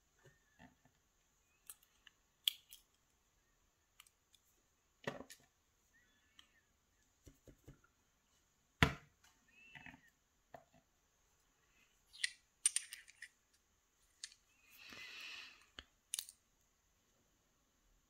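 Scattered small clicks and taps of steel tweezers against the brass housing of a Sargent lock cylinder as pins and springs are picked out of it, one sharper click a little before the midpoint. About a second-long scrape or rustle comes near the end.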